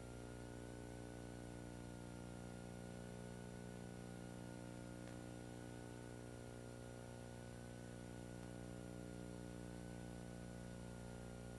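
Steady low electrical hum with many overtones and a faint thin high whine above it, the background noise of a 1990s police dash-camera recording with the patrol car running.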